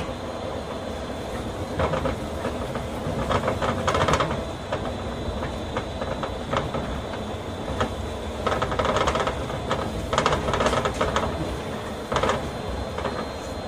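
Astram Line 6000 series rubber-tyred automated guideway train running, a steady rumble broken by irregular clusters of clacks and rattles.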